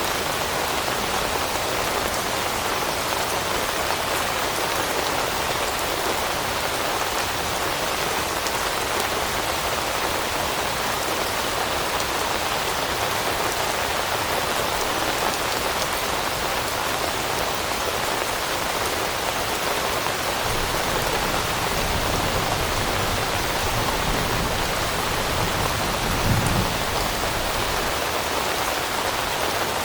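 Steady rain falling on leaves, an even hiss of raindrops. A low rumble swells about two-thirds of the way in, with a brief low thump near the end.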